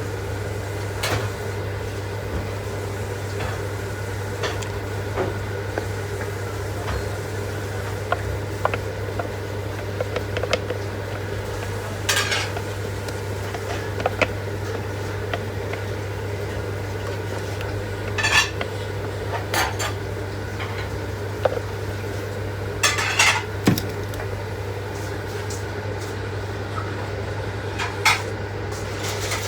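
Kitchen utensils and dishes clinking and scraping while baking: scattered single clicks with a few short clusters of clinks, over a steady low hum.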